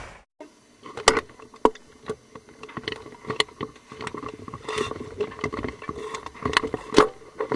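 Choppy sea slapping and splashing against the side of a moving boat: a run of sharp, uneven slaps, one every half second to a second, over a faint steady hum.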